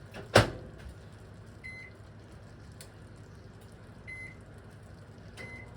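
A sharp knock near the start, then three short electronic beeps from a kitchen appliance spaced unevenly over the next few seconds.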